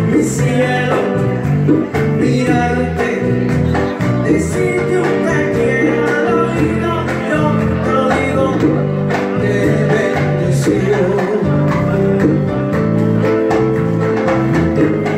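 Live band music: keyboard and hand drums playing an unsung passage of a slow Latin song.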